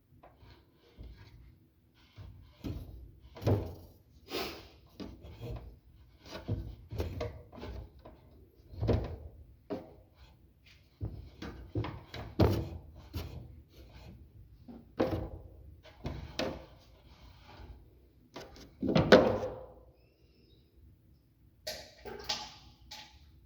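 Sounds of someone using a toilet: an irregular series of short thuds and bursts, about one a second, with the loudest and longest burst a little past the middle.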